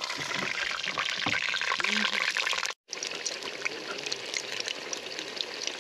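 Khuushuur, Mongolian meat pastries, sizzling and crackling in hot oil in a metal pot, with many small pops. The sound cuts out for an instant a little before halfway.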